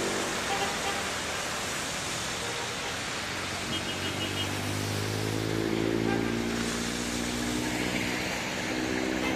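Road traffic in rain: a steady rush of rain and wet road noise. About halfway through, a vehicle engine's hum comes in and rises slightly in pitch.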